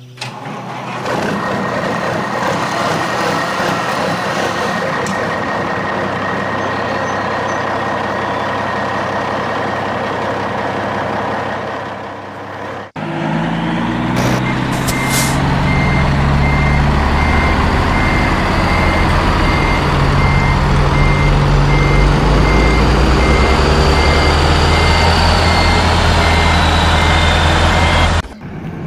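Truck engine sound running steadily. It cuts out abruptly about 13 seconds in, then comes back lower and heavier, with a reversing alarm beeping in an even rhythm from about 14 seconds on.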